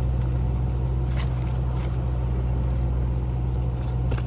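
Steady low drone inside a car, with a few faint rustles and clicks as grocery bags and bottles are handled.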